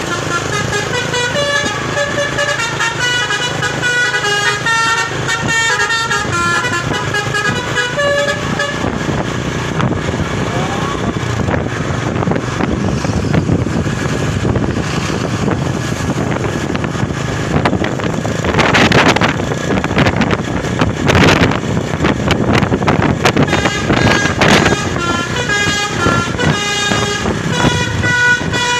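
Satria Kirani Altaf bus's basuri "telolet" musical horn playing a stepping multi-note tune over the bus's engine and road noise. The tune plays for the first several seconds, then gives way to engine rumble with a few short loud hisses, and starts up again near the end.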